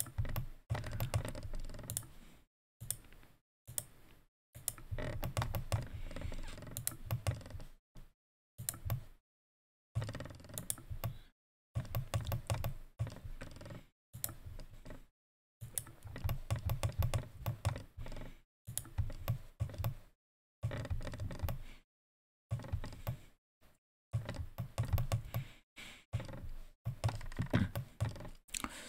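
Bursts of clicking and tapping on a computer mouse and keyboard, in clusters broken by short silent gaps.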